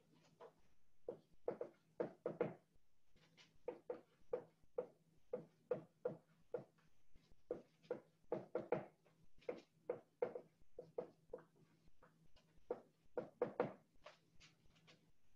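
Dry-erase marker writing on a whiteboard: a run of short, irregular strokes and taps with brief pauses between words, over a faint steady low hum.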